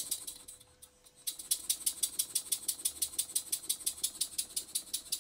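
Basset-Lowke Tangye model horizontal engine running on compressed air, its exhaust beats fading out in the first second, then after a short lull starting again with a fast, even chuff of about five to six beats a second, each with a hiss of air. Its valve timing is set with admission just about at top dead centre, and it runs smoothly and freely.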